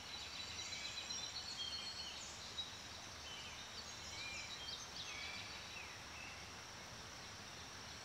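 Woodland ambience: small birds chirping briefly again and again over a faint, steady background hiss.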